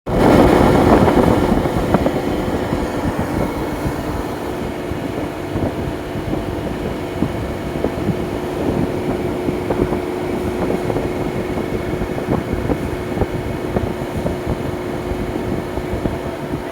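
Blast freezer's newly replaced refrigeration compressor running steadily, with a constant hum and a busy mechanical rattle. It is a little louder in the first second or two. The unit is working normally again after the replacement.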